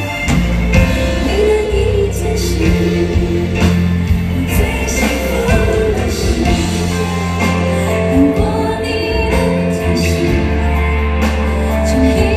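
Live pop ballad played by a band with a singer's voice over sustained bass and keyboard notes, recorded from among the audience in a large hall.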